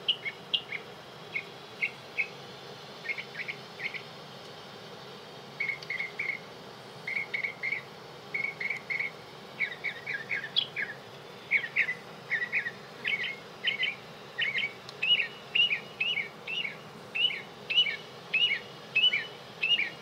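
Recorded bird chirps played back from a bird-sound video: short high chirps, scattered at first, then from about halfway a steady run of about two rising-and-falling chirps a second.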